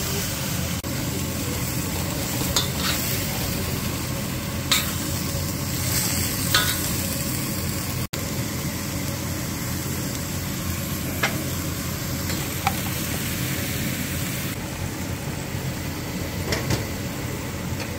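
Chicken, tofu and vegetables sizzling in a wok as they are stir-fried, with a spatula knocking against the pan a few times.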